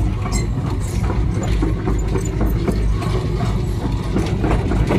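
Mini excavator's diesel engine running steadily, heard from inside the cab, with scattered light clicks and rattles over it.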